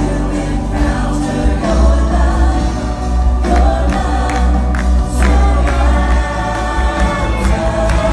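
A live worship band playing a contemporary praise song: several singers, men and women, singing together over keyboard, electric guitars and a strong steady bass line.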